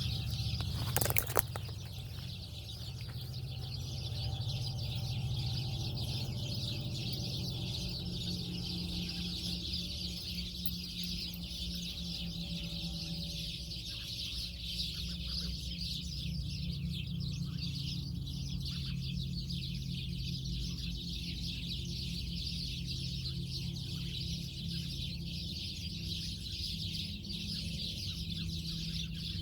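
A dense, steady chorus of many birds calling together, with a low steady hum beneath.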